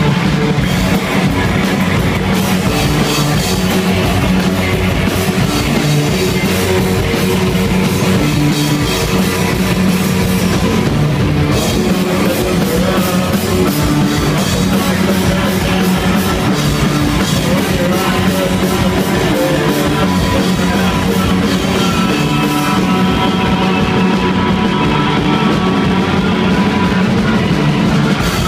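Rock band playing live and loud: distorted electric guitars, bass and a drum kit with cymbals, heard close to the stage.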